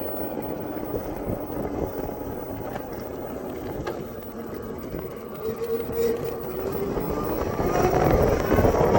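Zero DSR electric motorcycle's drive whining over a steady low wind and road rumble. From about seven seconds in, the whine climbs in pitch and grows louder as the bike accelerates.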